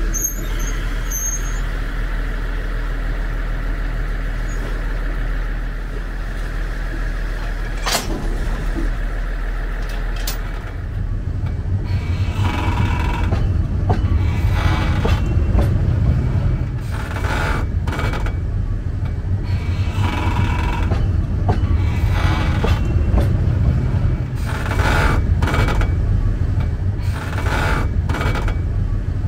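Ōigawa Railway train standing with its machinery running steadily, a sharp clack about eight seconds in, then from about ten seconds a louder low rumble with hissing that comes and goes.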